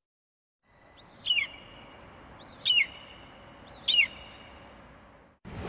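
A bird's cry repeated three times, each a short falling call, identical and about a second and a half apart, over a faint steady hiss. A loud rushing sound starts just before the end.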